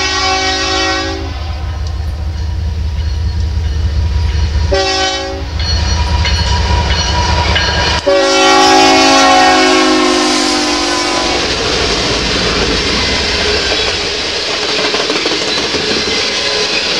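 Diesel freight locomotive's multi-chime air horn sounding a chord: a long blast ending about a second in, a short blast around five seconds, then a long blast whose pitch drops as the locomotive passes. After that comes the steady rumble and clickety-clack of the loaded tank cars' wheels rolling by.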